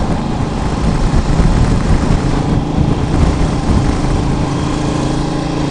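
Motorcycle engine running at road speed under a heavy rush of wind on the microphone. A steady engine note comes through about two seconds in.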